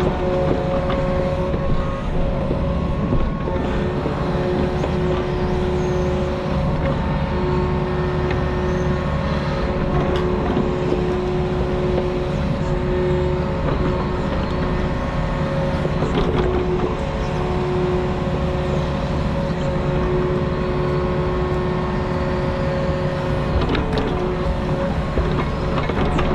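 Diesel engine of a compact earthmoving machine running steadily, a constant rumble with a steady tone and a few light knocks from the machine at work.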